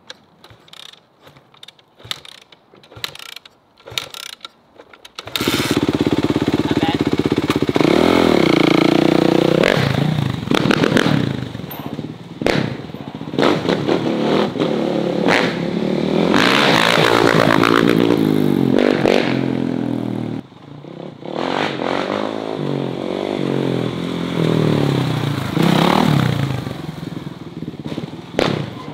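Used dirt bike being kick-started: a few clattering knocks of the kickstarter, then about five seconds in the engine catches and is revved up and down repeatedly, dropping back briefly about two-thirds of the way through.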